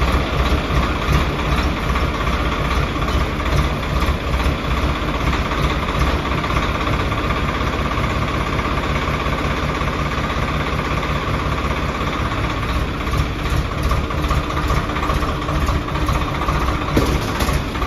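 Swaraj 855 FE tractor's three-cylinder diesel engine idling steadily.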